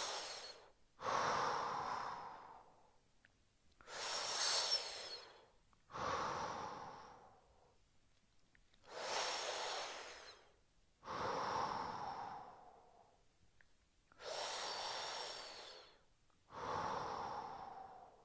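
A man breathing slowly and deeply while holding a neck stretch: four full breaths, each a short, airy in-breath followed by a longer, lower out-breath that fades away, with pauses in between.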